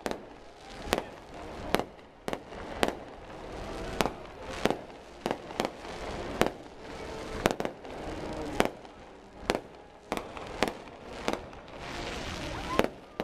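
Aerial fireworks display going off in an irregular run of sharp bangs, one to two a second.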